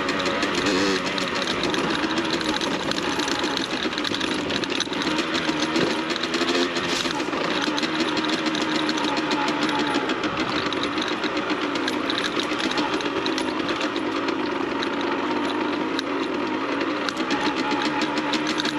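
Beta RR 50 dirt bike's 50cc two-stroke engine running under way, its buzzing note rising and falling as the throttle is worked.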